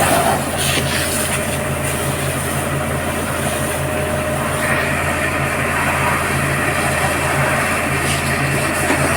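Fire tender's engine running steadily with a constant low hum while the crew works the hoses. About halfway through, a steady hiss joins it.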